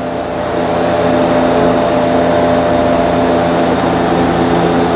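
Steady mechanical hum with several constant tones. Over it a soft rushing noise rises about half a second in and holds steady as motor oil is poured from a jug through a funnel into the engine's oil filler.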